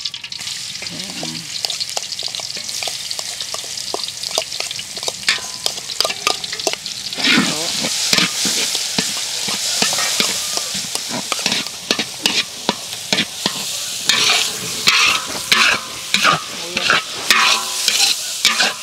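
Ground garlic sizzling in hot oil in a large wok, with a metal spatula scraping and clinking against the pan as it is stirred. The sizzle grows louder about seven seconds in, and the scraping strikes come thicker near the end.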